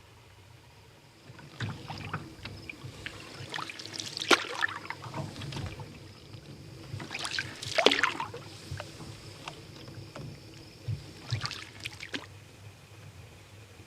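Solo canoe being paddled: the paddle dipping and pulling through the water in strokes every few seconds, with splashes, drips and light knocks. It begins about a second in.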